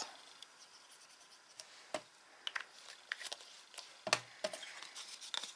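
Faint handling of craft paper being folded and glued: scattered soft taps and rustles, with a firmer knock about four seconds in.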